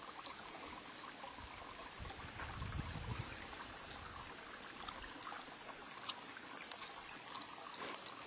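Small spring-fed stream trickling and running steadily, with a low rumble from about two to five seconds in and a few faint clicks, the sharpest about six seconds in.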